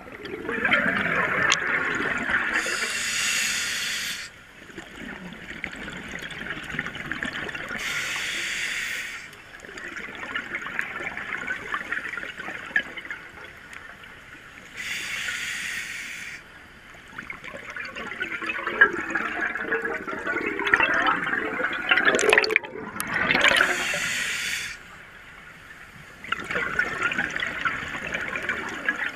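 Scuba diver breathing through a regulator underwater: stretches of bubbling exhaled air, broken four times by the short, even hiss of an inhalation, about one breath every six seconds.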